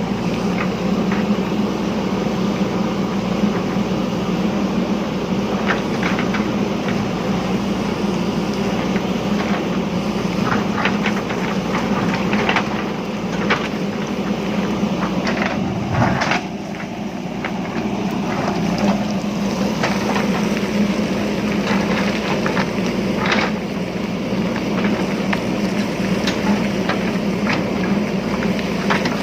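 JCB backhoe loader's diesel engine running steadily under load, with scattered sharp knocks and clatters of the bucket working stony ground. The engine eases briefly a little past halfway.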